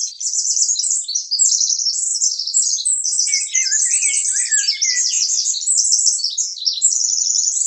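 High, rapid bird-like chirping and trilling that runs on without a break. A lower warbling strand joins in from about three seconds in to about five seconds in.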